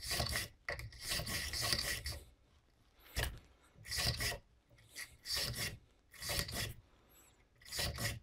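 Brass bore brush scrubbing through the chambers of a stainless Taurus revolver's cylinder, its wire bristles rasping against the steel in short back-and-forth strokes about once a second, loosening fouling from shooting. A single sharp click comes about three seconds in.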